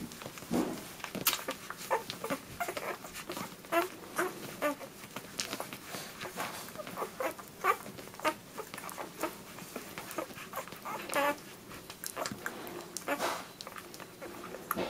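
A litter of one-week-old poodle puppies nursing, with frequent short squeaks and whimpers over small clicks of suckling; two louder whines come in the last few seconds.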